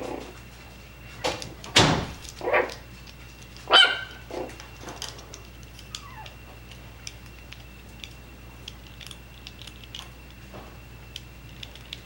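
Coton de Tulear barking, four or five sharp barks in the first four seconds, then only faint light clicks.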